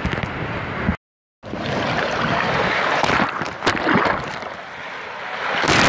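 Small waves washing in over sand at the water's edge, swelling and receding several times, with wind buffeting the microphone. The sound cuts out for a moment about a second in.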